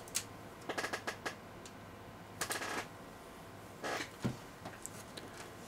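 Handling noise at a workbench: a few scattered short clicks, knocks and rustles as a lead-acid battery pack is lifted out of an injection-moulded plastic instrument case and set down.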